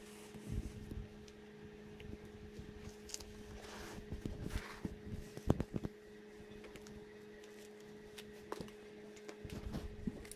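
Scattered light knocks, clicks and a brief rustle of hands working on a motorcycle seat, over a steady electrical hum.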